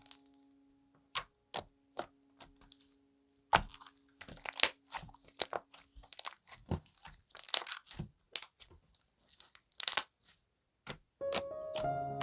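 Slime being squeezed and stretched, giving off sharp, irregular clicks and pops. Soft background music holds a note through the first half and comes back in near the end.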